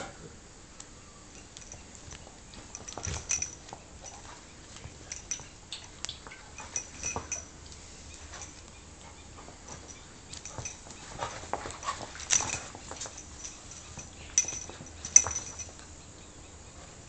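A mini pig and a mastiff-cross dog tussling, heard as a scattering of short knocks and clicks in irregular clusters, the two sharpest near the end.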